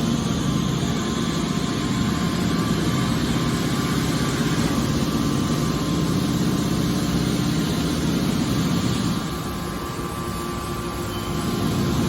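Hydraulic metal baler's pump and motor running with a steady mechanical drone. It dips in level about nine seconds in and rises again near the end.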